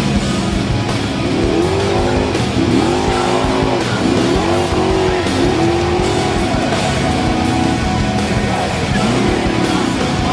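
Formula offroad buggy's engine revving hard in repeated surges, its pitch rising and falling as it powers up a steep sand hill under full load, with music playing underneath.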